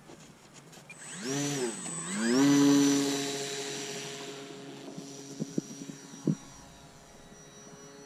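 An RC seaplane's 1100 kV brushless electric motor and propeller spool up. The whine rises, dips briefly, then climbs to full throttle about two and a half seconds in and holds steady while slowly fading, as for a takeoff run from grass. A few sharp clicks come a little past the middle.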